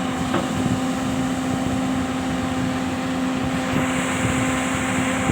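Volvo excavator's diesel engine running steadily, a constant drone with a low rough rumble.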